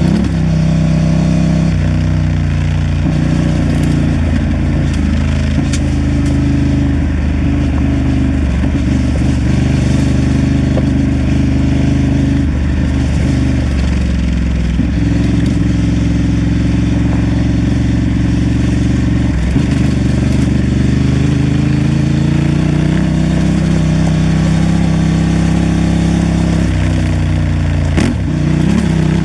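Honda Transalp XL750's 755 cc parallel-twin engine running under way, its note rising and falling with throttle changes, over steady wind and tyre noise on a gravel track. There are a couple of sharp clicks near the end.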